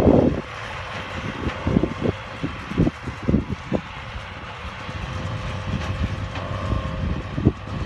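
New Holland and Case IH tractors pulling big square balers, running at a distance with a steady drone. Irregular low thumps break in, loudest at the start and near the end.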